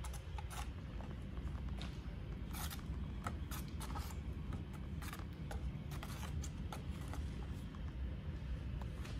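Foam paint roller being worked back and forth through white primer in a plastic paint tray, making short, irregular, scratchy scraping sounds while it loads with primer. A steady low rumble runs underneath.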